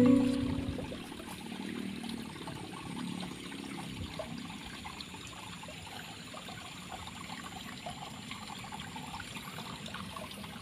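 Water in an irrigation ditch trickling and flowing steadily.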